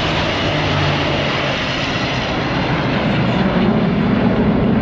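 Jet noise from the Red Arrows' formation of BAE Hawk jets flying past, a steady roar that grows louder about three and a half seconds in.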